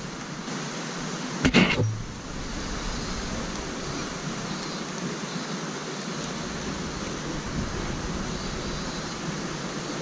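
Steady rush of water from a mountain stream or waterfall, with a short sharp knock about one and a half seconds in.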